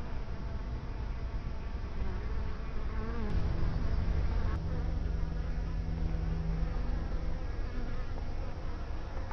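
Honeybees (native black bees, Apis mellifera mellifera) buzzing close by, a wavering buzz that shifts pitch about three seconds in, over a steady low rumble.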